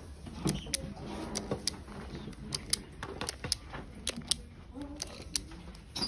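Plastic Skewb puzzle cube being twisted by hand: an irregular run of sharp plastic clicks, a few each second, as its corner pieces snap through each turn.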